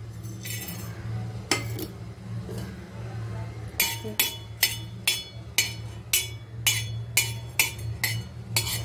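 A spoon clinking against a pan while whole spices are stirred and dry-roasted: a couple of single clinks, then from about four seconds in a regular tapping of about two clinks a second.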